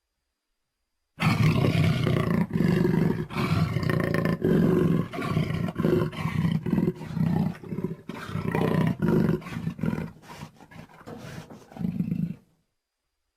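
Designed Carnotaurus dinosaur creature sound effect: a long run of deep, pulsing growls and roars in quick succession with brief breaks, starting about a second in and cutting off shortly before the end.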